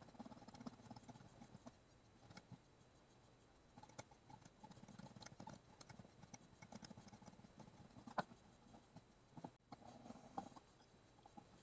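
Faint scratching and small irregular clicks of hand tools working on a small circuit board, with one sharper click about eight seconds in.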